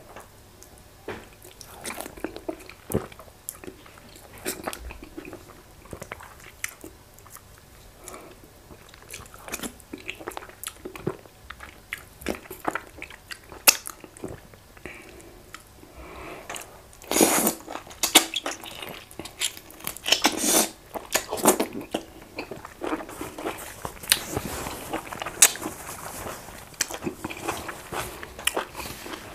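A person chewing and biting goat meat, fufu and efo riro vegetable soup, with many short wet mouth clicks that grow busier and louder in the second half.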